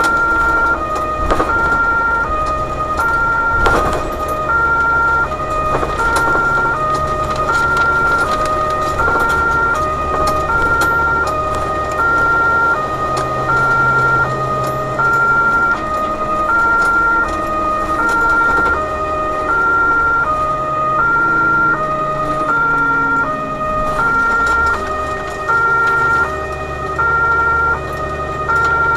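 Two-tone emergency siren (German Martinshorn) on a BVG overhead-line tower truck, alternating steadily between a high and a low note, each held a little under a second. It is heard from inside the cab over the truck's engine and road noise.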